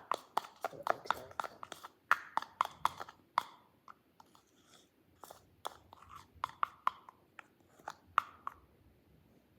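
A mixing utensil clicking against the side of a bowl while stirring a thick toothpaste-and-lotion slime mixture: irregular sharp clicks, about two or three a second, with a pause about four seconds in.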